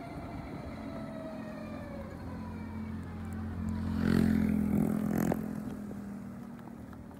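Motor vehicle engine running, with a slowly falling whine over the first few seconds, then growing louder to a peak about four seconds in and fading away.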